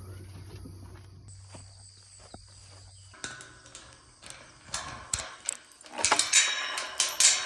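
Footsteps crunching, with rustling and scraping that grow louder and busier towards the end. A low steady hum stops about three seconds in.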